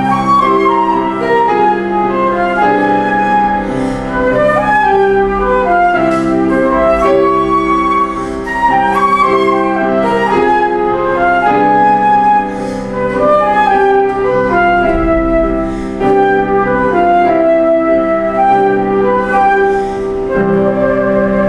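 Concert flute playing a melody, accompanied by a grand piano.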